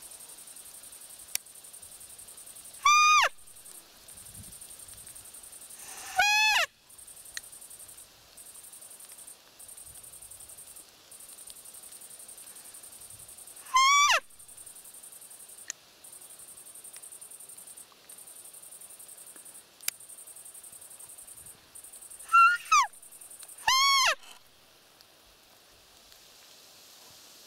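Roe deer call blown to imitate a doe's fiep: about six short, high-pitched squeaks, each falling in pitch, spaced several seconds apart, with two in quick succession and a third right after them near the end.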